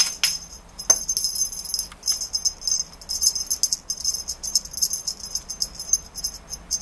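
Small jingle bell on a cat toy shaken in quick, uneven bursts of high, bright jingling, with short breaks between the bursts.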